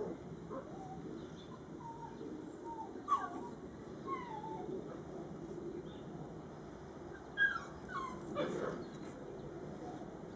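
Dogs play-wrestling: a string of short whimpers and yips that slide down in pitch, with a louder one about three seconds in and a cluster of them around seven to eight seconds.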